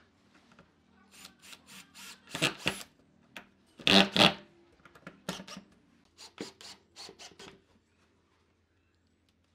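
Makita cordless drill boring into a pine board in a series of short bursts, the two loudest about two and a half and four seconds in.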